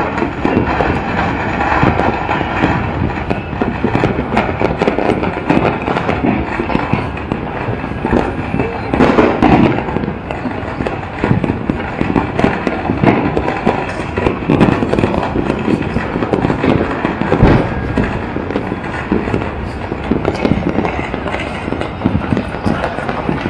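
Many fireworks and firecrackers going off at once in a dense, unbroken crackle of pops and bangs, with a few heavier bangs about nine and seventeen seconds in.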